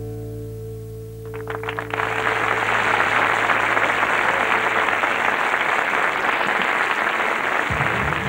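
A band's held closing chord dies away, then a few handclaps swell within a second into loud, sustained audience applause. Near the end a low rhythmic beat starts up under the applause.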